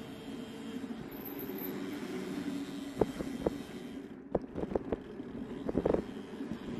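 A vehicle driving, its engine and road noise making a steady low hum. A handful of sharp knocks or rattles come about halfway through.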